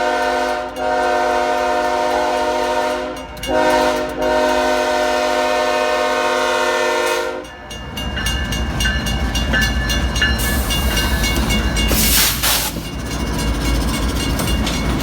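BNSF grain train's diesel locomotive air horn sounds a multi-note chord for about seven seconds, broken by two short gaps. Then the horn cuts off and the locomotives pass with a heavy engine rumble and fast clicking of wheels over the rail.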